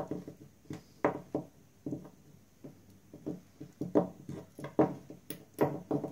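Hands handling glass beads, a metal bead cap and cord on a cloth-covered table: a string of small, uneven knocks and clicks, a dozen or more.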